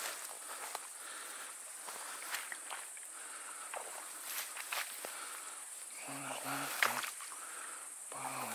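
Footsteps swishing and rustling through tall grass and reeds, over a steady high chirring of night insects such as crickets. A few brief low hums come about six and eight seconds in.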